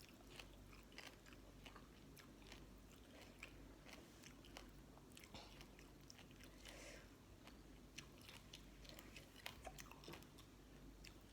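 Faint, close chewing with irregular crisp crunches and small clicks: eating green mango salad with pickled sea crab, whose crab is crunchy.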